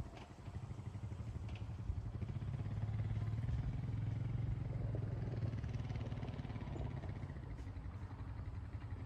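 Honda Rancher 420 ATV's single-cylinder engine idling, a steady low hum that swells a little in the middle.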